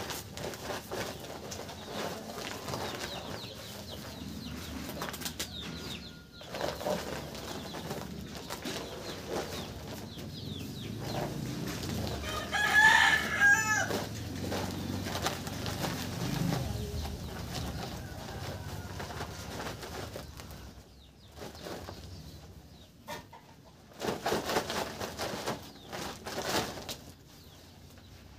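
Cement sliding and spilling out of a sack onto a heap of sand, with the sack rustling as it is shaken. About halfway through a rooster crows once, the loudest sound.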